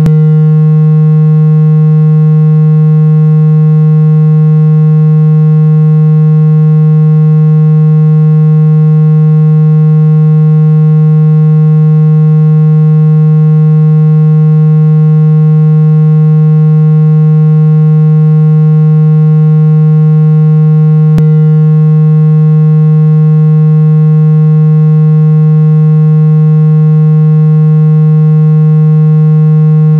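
Loud, steady, buzzy low synthesized tone with overtones, a water-ejection sound meant to shake trapped water out of a phone speaker. It holds one unchanging pitch throughout, with a faint click once about two-thirds of the way through.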